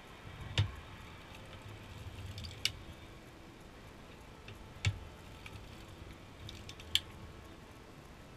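Hands handling the metal needles and fabric of a circular sock knitting machine: four sharp clicks about two seconds apart over faint rustling.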